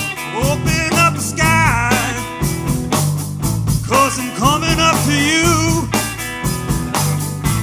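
Live rock and soul band playing, with a steady drum beat, bass, and a lead line that slides up and down in pitch over the groove.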